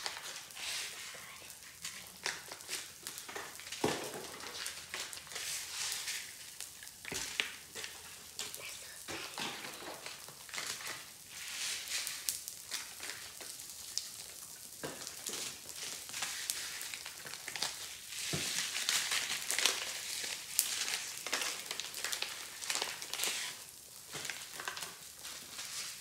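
Pop Rocks candy popping and crackling on clear glue slime: a steady sizzling fizz of many tiny sharp pops. Candy packets rustle as they are emptied.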